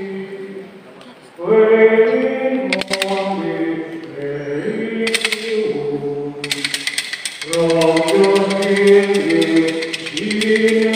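Voices singing a slow unaccompanied hymn or chant with long held notes, dropping away briefly about a second in before resuming. From about six seconds in, a rapid, even clicking rattle runs under the singing.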